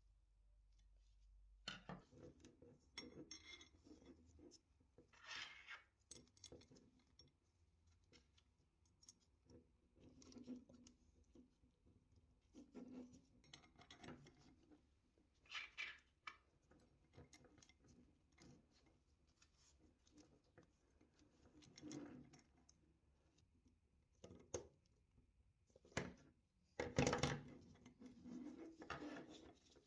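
Faint, irregular clicks, taps and short scrapes of small metal parts being handled, with a sharper knock near the end.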